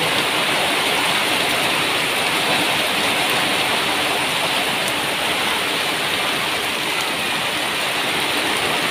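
Heavy rain pouring steadily onto corrugated metal roofs.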